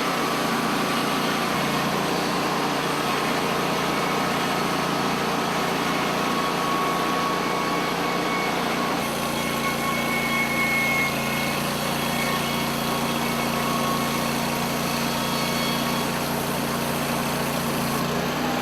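Portable bandsaw mill running, its engine holding a steady note under a steady mechanical hiss, with the sound shifting slightly about a second and a half in and again about nine seconds in.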